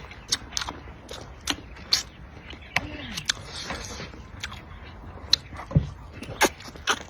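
Close-up eating sounds of spicy duck feet being chewed and sucked: an irregular string of short, sharp wet clicks and smacks.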